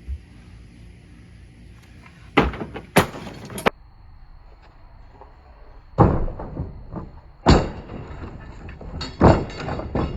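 A door being handled: a series of sharp knocks and clatters, six or so spread over several seconds.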